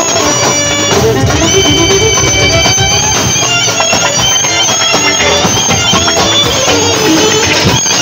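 Live Turkish Roma dance music played loud through a PA: a clarinet carries a melody with sliding notes over a davul drum beat.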